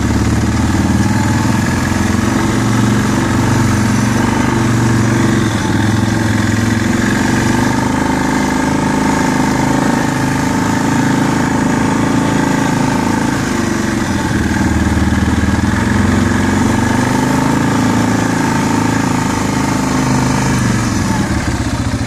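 2008 Arctic Cat 650 H1 4x4 ATV's single-cylinder four-stroke engine running under way, its pitch rising and falling a few times with the throttle.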